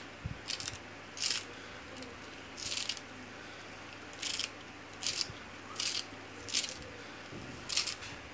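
A kitchen knife slicing through a bunch of fresh parsley held in the hand, about nine short crisp cuts at an uneven pace.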